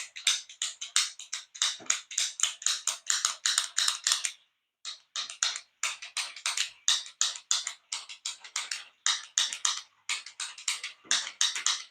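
Plastic 3D-printed fidget clicker with magnet-return buttons, clicked rapidly over and over: a fast run of crisp clicks, about five a second, with a brief break a little past four seconds in.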